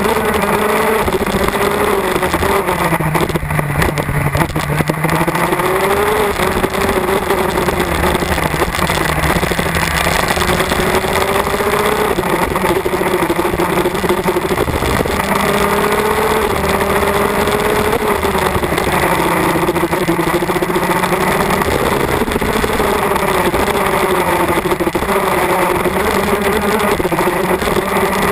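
KZ2 shifter kart's MAC Minarelli 125cc two-stroke engine, heard onboard at racing speed. Its pitch climbs and drops again and again as it accelerates down straights and comes off the throttle into corners.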